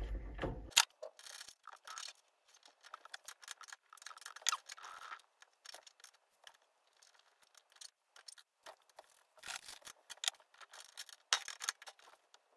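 Light metallic clicks and short scrapes of a steel cutter and multifix quick-change tool holder being handled and seated on a mini lathe's tool post, with a cluster of sharper clicks near the end.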